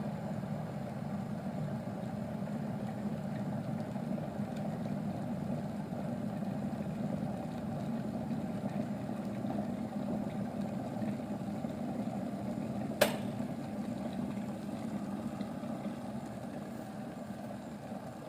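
Kettle of water heating at or near the boil, a steady rumble. A single sharp click comes about thirteen seconds in, and the rumble eases slightly near the end.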